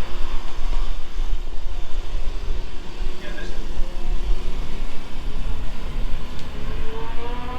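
Motorcycle engine running under a heavy low rumble of wind noise, with an engine note climbing in pitch near the end.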